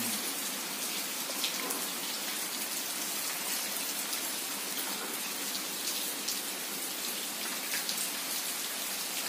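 Steady rain falling, a constant hiss with scattered drops heard as light ticks.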